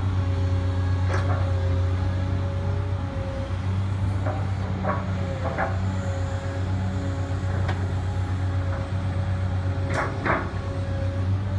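2008 Caterpillar M316D wheeled excavator's diesel engine running steadily under hydraulic load as the boom and bucket are worked, with a steady whining tone over it. Several sharp clanks from the working equipment cut in, two close together about ten seconds in.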